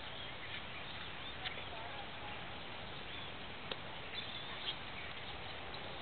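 Steady open-air background hiss with faint short bird chirps and a few soft sharp clicks.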